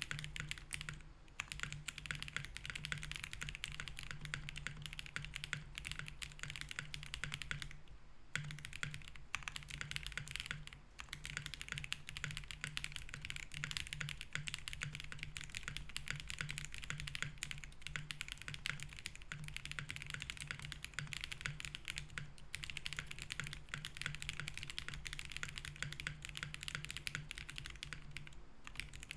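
Continuous fast typing on a Link65 mechanical keyboard with BSUN Roselle switches, FR4 plate and case foam, with a dense run of key clicks broken by a few short pauses. A faint steady low hum runs underneath.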